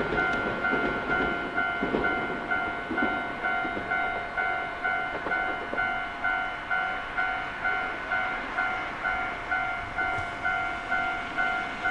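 Japanese level-crossing warning bell ringing on and off in an even rhythm, nearly two strokes a second. A passing train's wheels rumble over the rails, fading out in the first two seconds or so.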